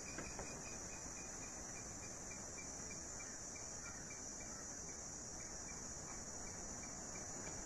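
Faint steady background hiss with a high-pitched band and a faint, evenly spaced ticking of about two to three ticks a second.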